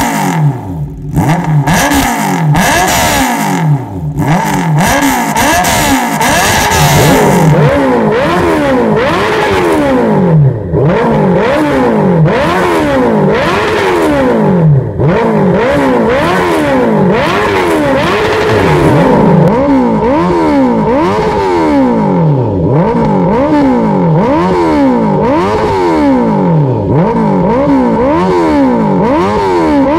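Honda CB650R's inline-four engine, breathing through a full aftermarket exhaust system, revved over and over in neutral, the pitch climbing and dropping with each blip of the throttle in quick succession.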